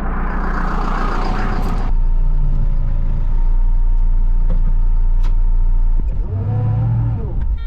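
Loader's diesel engine running steadily, with a rushing hiss over the first two seconds; about six seconds in the engine revs up and drops back, and a backup alarm starts beeping at the very end.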